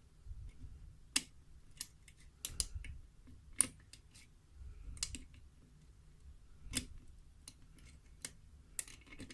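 Irregular small metallic clicks and ticks of a lock pick working the pin stacks of a pin-tumbler lock held under a tension wrench, a dozen or so sharp clicks at uneven intervals.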